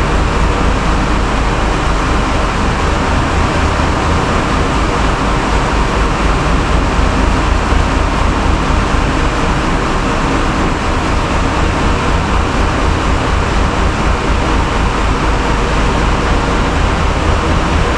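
Passenger ferry underway: a steady low drone from the ship's engines, with an even rushing noise over it.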